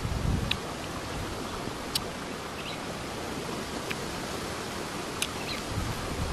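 Steady outdoor background hiss, with a few faint sharp ticks and two short high chirps scattered through it, and a brief low rumble right at the start.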